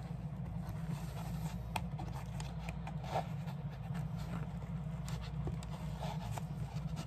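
Steel end-cutting pliers scraping and clicking against a metal rivet in a leather tab as it is pried loose: scattered faint scrapes and clicks over a steady low hum.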